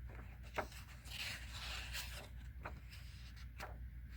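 Paper and cardboard game sheets being handled: a sharp tap about half a second in, then a second or so of rustling and sliding, with a few light taps after.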